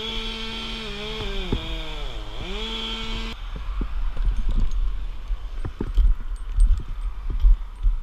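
Chainsaw engine running at a steady pitch that sags and recovers about two seconds in, then cuts off abruptly after about three seconds. Scattered knocks and thumps follow.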